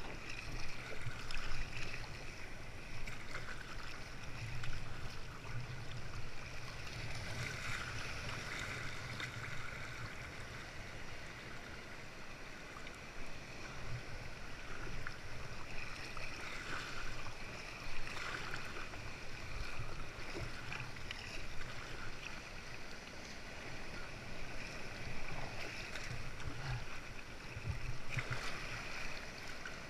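Sea water sloshing and splashing around a paddled sea kayak, with irregular louder splashes every few seconds over a steady low rumble.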